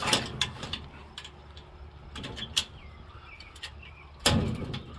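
Scattered clicks and light metal knocks from the doors of an emptied metal pigeon transport crate being handled, with a louder thump about four seconds in.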